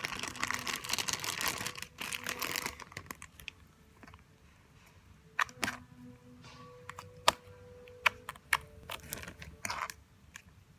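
Thick slime being squished and pulled out of its tub by hand: dense sticky crackling for about three seconds, then scattered sharp clicks and pops.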